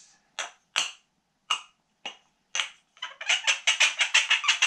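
Wooden kendama ball knocking against the wooden ken. There are a few separate sharp clicks, then from about three seconds in a fast run of knocks, about eight a second.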